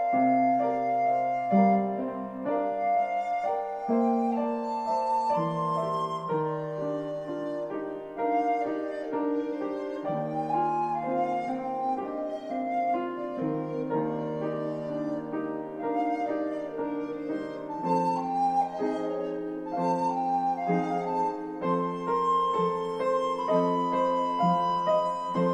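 Recorder and piano playing a duet: a recorder melody of held notes over piano accompaniment.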